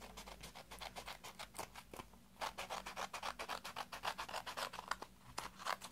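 Scissors cutting along the edge of a paper envelope: a quick series of short snips of the blades through the paper.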